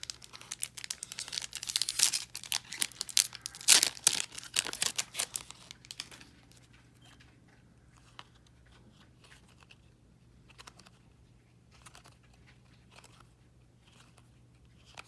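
A trading card booster pack's wrapper being torn open and crinkled for about six seconds, followed by only faint, scattered ticks as the cards are handled.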